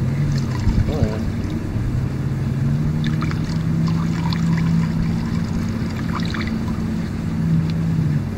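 Thin paint reducer pouring from a can into a plastic paint bucket in a steady trickle that sounds like peeing, under the steady drone of an engine running.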